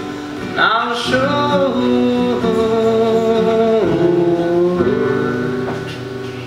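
Two acoustic guitars playing a slow song while a man sings long, held notes over them.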